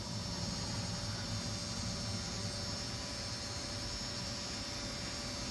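Steady background hiss with a low hum and faint thin high tones, unchanging throughout: room tone.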